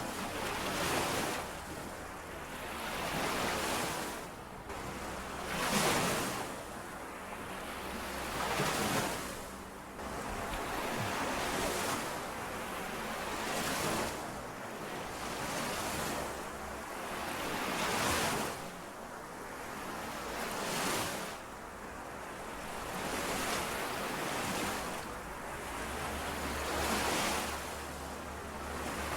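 Small lake waves washing in and out against the shore, a rushing swell every two to three seconds.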